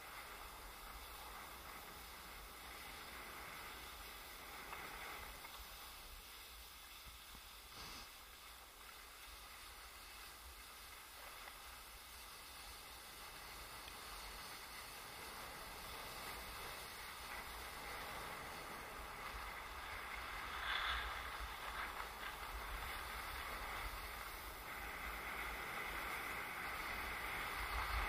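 Skis sliding and scraping over packed snow on a downhill run, with wind rumbling on the microphone. The scraping grows louder in the last third, with a brief louder rasp about 21 seconds in.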